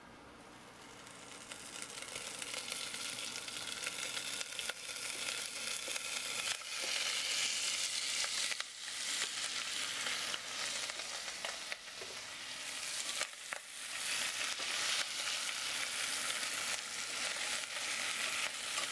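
Cubed pork belly and shallots frying in hot oil in a pot. The sizzle swells over the first few seconds as the meat goes in, then goes on steadily with crackles, and a spatula stirs the pieces near the end.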